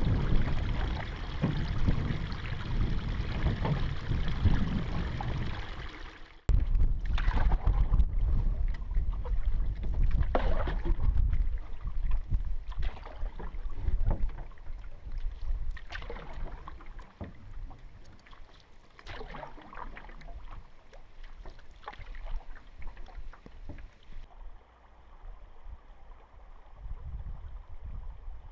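Wooden canoe paddle strokes in lake water, one splash about every one to two seconds through most of the clip. A low rumble comes before the strokes begin. They end in a quieter, steady rush of water.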